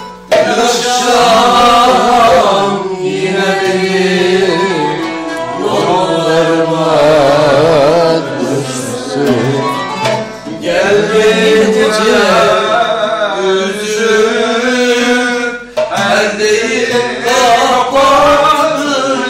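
A voice singing a melody with wavering, ornamented pitch, accompanied by a hand drum.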